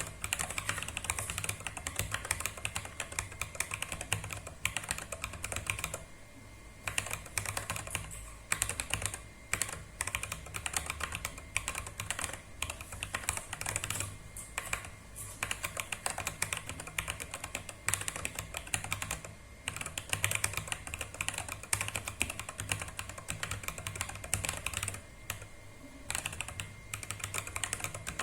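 Fast, continuous typing on a small 30-key mechanical keyboard, a dense stream of key clicks broken by a few short pauses.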